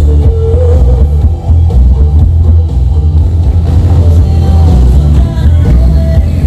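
Background music with a heavy, pulsing bass line and a melody on top.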